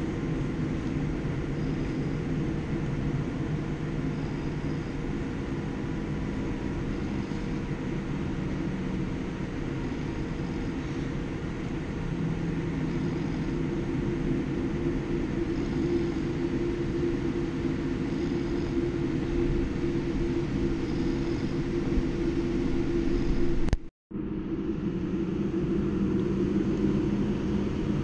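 Steady low rumble and hum of a Boeing 787-9's jet engines heard from inside the cabin as the airliner taxis, growing slightly louder later on. Near the end the sound cuts out abruptly for a moment, then the rumble resumes.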